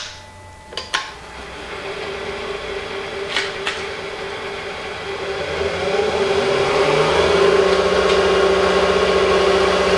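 Record Regent wood-turning lathe switched on with a click about a second in, its motor then running with a steady hum. The hum grows louder from about five to seven seconds in as the lathe speeds up, then holds steady.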